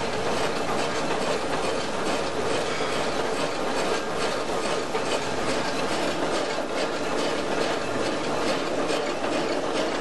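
V-KOC electric wire stripping machine running, its 2.2 kW motor and gear-driven rollers making a steady, dense mechanical rattle that holds an even level throughout.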